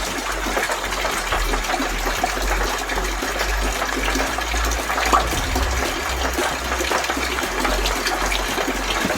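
Water running steadily, an even rushing hiss with a low hum beneath it.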